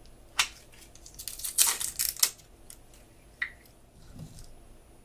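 Slime handled by hand for ASMR, giving sticky, crackling pops and clicks. There is one sharp pop, then a dense run of crackling pops about a second in, and a short squeak past the middle.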